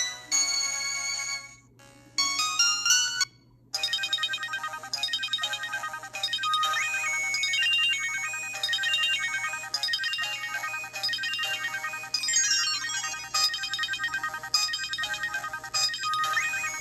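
Samsung GT-E1175T mobile phone playing its built-in ringtone melodies, made of electronic notes. One tune breaks off twice in the first few seconds, then a new melody of short repeated notes starts and plays on.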